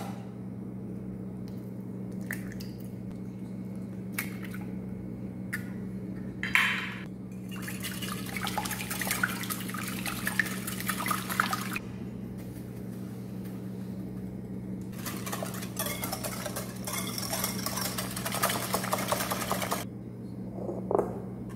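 Wire balloon whisk beating eggs in a glass bowl, clattering and scraping against the glass in two long spells, after a few scattered knocks and taps. A steady low hum runs underneath.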